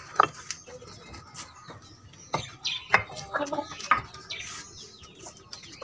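Fired clay bricks being lifted and set down on one another, giving a series of short clinks and knocks.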